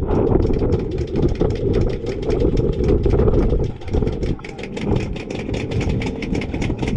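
A truck engine running steadily, the field's gun truck, with a rapid run of sharp clicks that grows denser in the second half.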